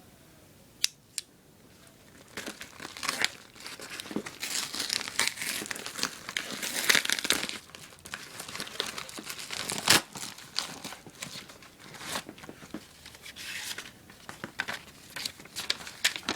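Product packaging being torn open and handled: crinkling and tearing, with scattered sharp clicks and snaps, starting with two quick clicks about a second in.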